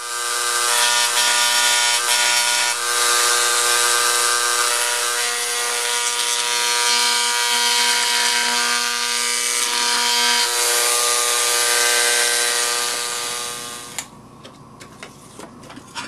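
Electric engraving pencil buzzing steadily as its vibrating tip scores a pattern outline into 16 gauge sheet metal. The buzz stops suddenly near the end, leaving a few light clicks.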